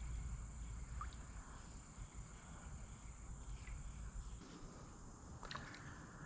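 Insects, likely crickets, singing in a steady high-pitched drone, with a low rumble that fades out past the middle and a couple of faint clicks near the end.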